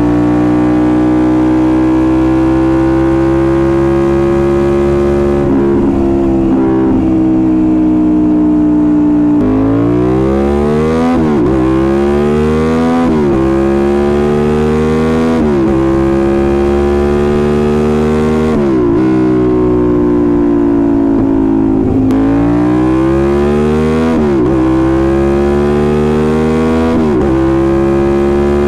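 Suzuki SV650S 645 cc V-twin engine under way. Its note climbs slowly at first. From about ten seconds in, the bike accelerates hard: the pitch rises quickly and drops sharply at each of several upshifts. It eases off briefly past the middle, then pulls up through the gears again.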